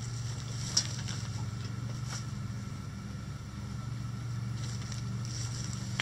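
A steady low mechanical hum, like a motor running, with one sharp click about a second in and a few faint brief ticks later on.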